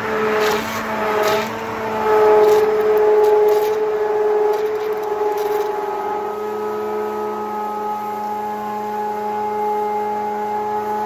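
Handheld immersion blender running steadily in a bowl, emulsifying melted oils and butters with warm goat's milk poured in as it blends to make lotion. Its motor whine dips slightly in pitch about halfway through, and liquid splashes in the first few seconds.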